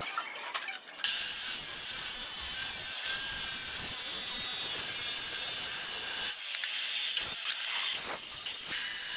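Abrasive cut-off saw grinding through square steel tubing: a loud, harsh, high-pitched grind that starts about a second in and eases off around six seconds in.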